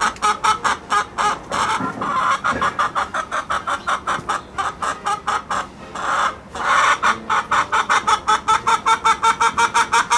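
Domestic hen clucking in a rapid, steady run of short notes, about six a second, broken twice by a longer, louder note.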